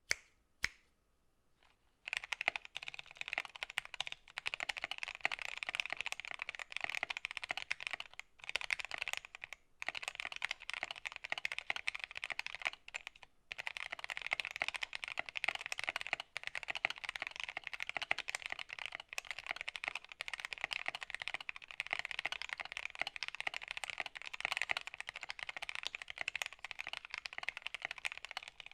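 Continuous fast typing on a Gamakay K61 mechanical keyboard with Gateron Yellow linear switches lubed with Krytox 205g0, in a layered acrylic case and plate. It starts with a couple of single key presses, then dense key clacks begin about two seconds in, with a few short pauses.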